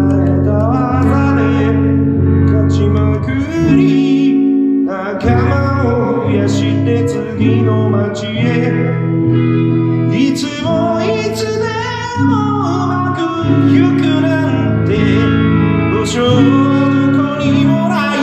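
A band playing a song: electric bass and guitar with singing over them. The bass drops out briefly about four seconds in.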